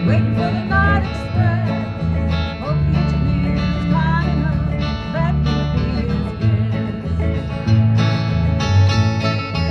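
Acoustic guitar playing an old-time country duet tune, a steady strummed rhythm with alternating bass notes, and a melody line with sliding notes over it.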